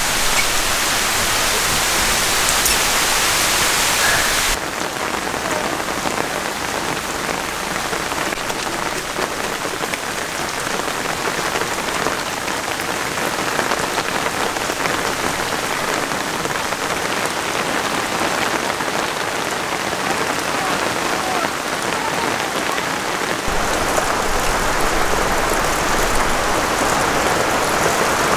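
Heavy rain falling steadily, a dense patter on water and leaves. The sound shifts abruptly about four seconds in, and a low rumble joins it a few seconds before the end.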